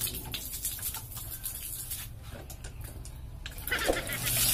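Light clicks and taps of a plastic soft-drink bottle being handled. About three and a half seconds in, water from a hand pump's spout starts gushing into the bottle with a loud, steady rush.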